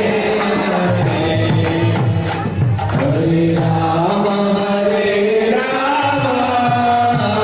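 Devotional kirtan: a lead voice chanting a melody through a microphone, with hand cymbals keeping a steady beat.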